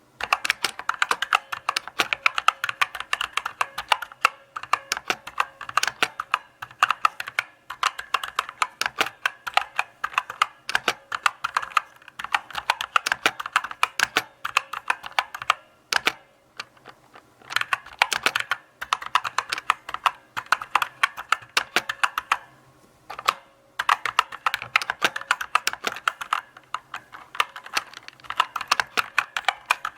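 Typing on a mechanical keyboard: a steady run of sharp key clicks, several a second, with two short pauses in the middle.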